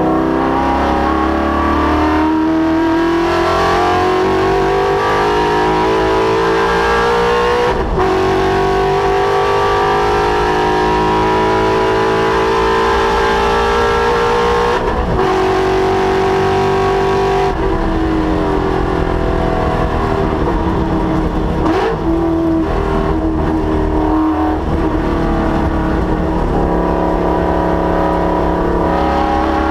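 Ford Mustang's Coyote 5.0 V8 under hard acceleration on a race track. The engine pitch climbs steadily, breaks briefly at gear changes about eight and fifteen seconds in, falls away as the car slows, then climbs again near the end.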